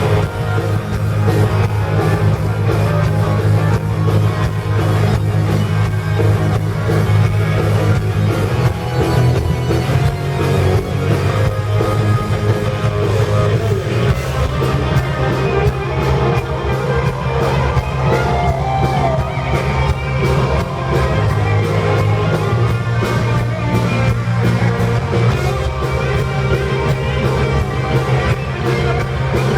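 Heavy metal band playing live through a PA, with electric guitar, bass guitar and a drum kit; the bass notes change about a third of the way through and again near the middle.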